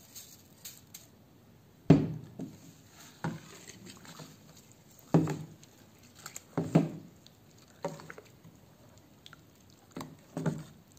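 Steel ladle stirring flattened rice flakes into a thick coconut-milk mixture in a stainless-steel bowl. The liquid sloshes softly, and the ladle knocks against the bowl about eight times at irregular intervals.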